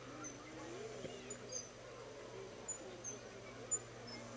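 Outdoor ambience of scattered short, high-pitched chirps, a few each second and some dropping slightly in pitch, over a steady low hum and a faint murmur of distant voices.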